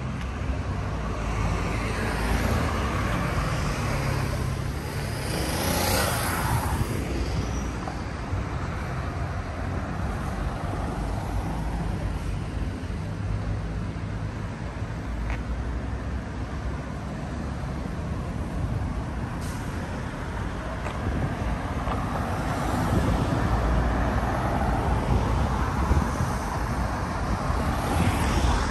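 Street traffic: a steady rumble of engines and tyres, with vehicles passing close a few seconds in and again near the end.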